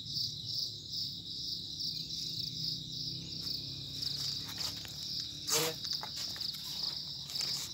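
A steady high-pitched insect chorus, pulsing about three times a second, with a brief sharp sound about five and a half seconds in.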